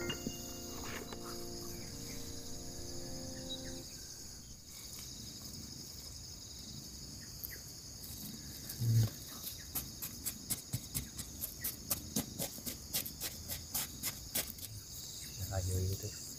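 Steady chorus of crickets and other insects, with background music fading out in the first few seconds. Later comes a run of quick scrapes and pats from hands firming burnt soil around a planted seedling.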